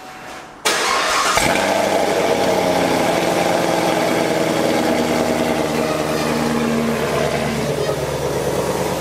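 2021 Chevrolet Camaro 1LE engine fired up through new long-tube headers with welded-in catalytic converters, catching suddenly about a second in and then running at a steady idle. This is the first start with the new exhaust.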